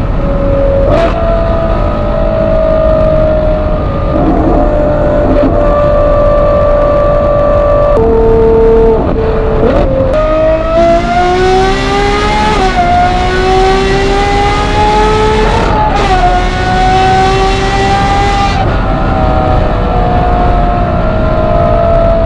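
Novitec Ferrari 812 GTS N-Largo's 6.5-litre V12 heard from the driver's seat. It cruises at motorway speed, changes gear around eight to ten seconds in, then pulls hard under full throttle with the pitch climbing, broken twice by quick upshifts. After the pull it lifts off and settles back to a steady cruise with the revs slowly falling.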